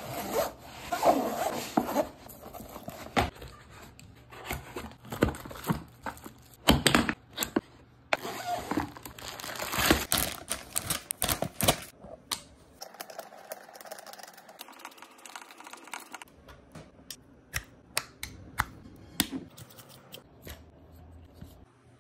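Hands unpacking and assembling a Creality CR-Scan Ferret Pro 3D scanner: a zipper on its carry case is pulled open, with rustling and scraping of the packed parts. After that, scattered sharp plastic clicks and knocks as the scanner, handle and tripod are fitted together, quieter from about halfway through.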